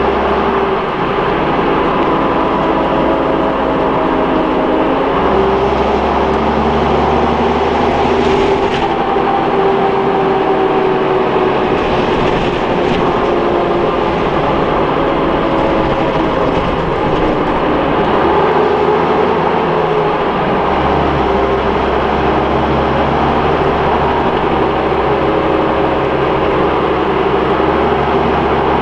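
Leyland Olympian double-decker bus on the move, heard from inside its saloon: a loud, continuous drone of engine and road noise. The engine note rises and falls several times.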